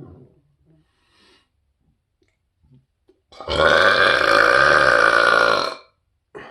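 A man's very loud, long burp, held steady for a little over two seconds, starting about three and a half seconds in. It reads 114.8 dB on a sound meter, his loudest burp yet.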